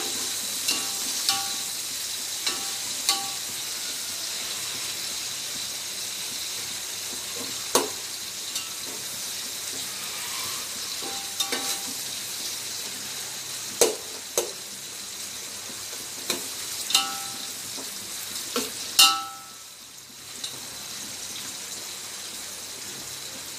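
Sliced onions and whole spices sizzling in hot oil in a large metal pot, stirred with a steel ladle that knocks and clinks against the pot about a dozen times, the loudest knock near the end. The onions are being fried to a light golden brown.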